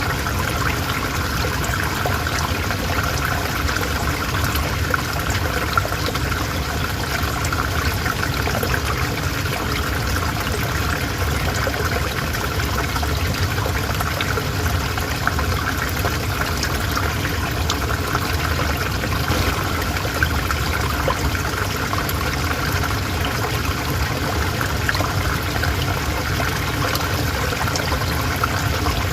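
River water flowing steadily, a continuous rushing and trickling over stones.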